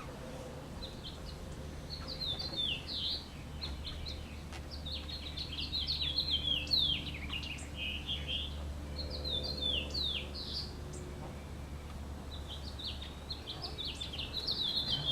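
A songbird chirping in short, quick phrases that recur every few seconds, over a steady low hum.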